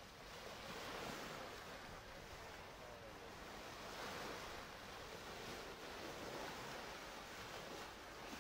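Small waves washing in at the water's edge, swelling and fading every few seconds, with a little wind on the microphone.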